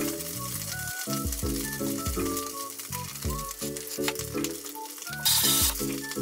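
Beaten egg sizzling in a rectangular tamagoyaki pan over a gas flame, steady throughout, with a louder burst of sizzling a little over five seconds in as chopsticks work the egg in the pan. Background music plays over it.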